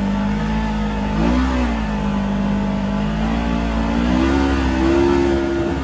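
Off-road vehicle engine running and revving: its pitch swings up and back down about a second in, then climbs and holds higher before dropping near the end. It is heard from inside a side-by-side's open cab.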